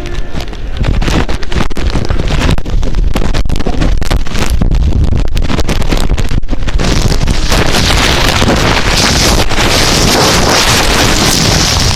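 Loud rustling and crinkling of a bag handled right against the microphone, crackly at first and turning into a dense, continuous rustle about seven seconds in.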